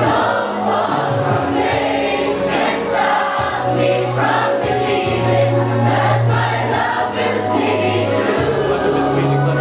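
A large group of young voices singing a school hymn together as a choir, over long held low notes that change every second or two.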